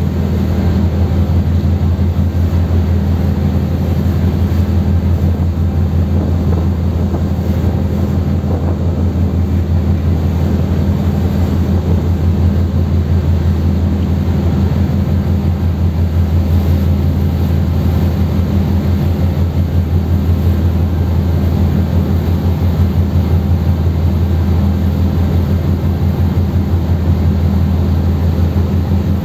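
A car ferry's diesel engines running at steady cruising power, heard on the open deck as a loud, unchanging low drone with a fast throb. A faint hiss of wind and water sits underneath.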